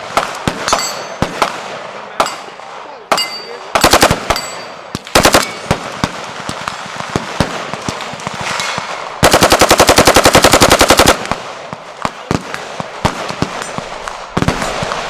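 Gunfire from several guns at once: scattered single shots throughout, short fully automatic bursts about 4 and 5 seconds in, and a long, very fast machine-gun burst of about two seconds near the middle, the loudest part.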